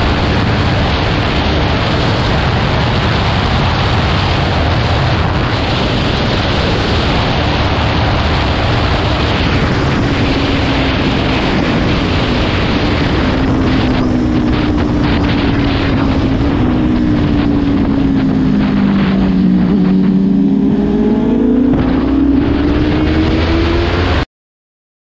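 Sport motorcycle riding at speed with heavy wind noise on the microphone. About halfway through, the engine note comes through clearly, falls in pitch, then rises again. The sound cuts off abruptly just before the end.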